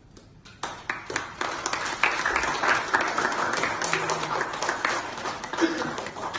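Audience applauding, breaking out about half a second in and carrying on steadily.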